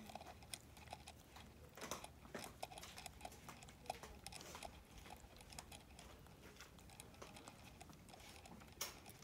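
Faint wet clicks and smacking of a vervet monkey sucking from a plastic feeding bottle held to its mouth, a steady run of small ticks with a louder one near the end. The monkey is drinking eagerly: he is thirsty.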